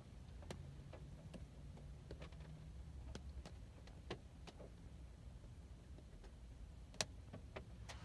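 Raindrops tapping on a window pane in scattered, irregular ticks, one louder tap about seven seconds in, over a faint low rumble.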